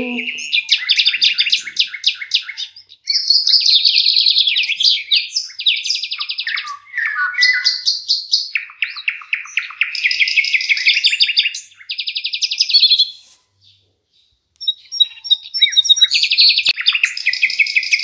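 A songbird singing a long run of fast, varied, high-pitched trilled phrases, with a pause of about a second about three-quarters of the way through.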